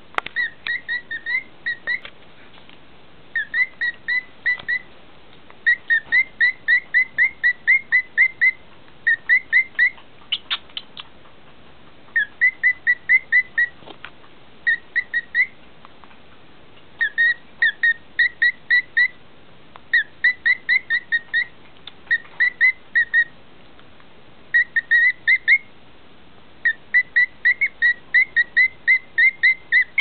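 Male cockatiel singing: short whistled notes, about four a second, in bursts of several notes broken by brief pauses.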